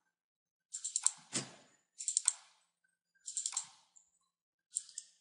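Clicking at a desktop computer: four short clusters of quick mouse and keyboard clicks, each cluster a few clicks long, about a second or more apart, as folders are opened one after another.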